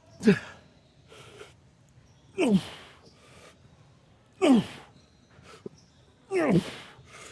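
A man's strained groans on hard lifting reps, one about every two seconds, each falling in pitch, with short breaths drawn between them.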